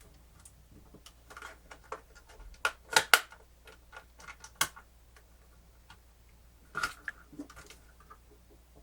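Small, irregular plastic clicks and taps from a portable cassette player's casing and button parts being handled and pried during disassembly. There is a louder cluster about three seconds in and another near seven seconds.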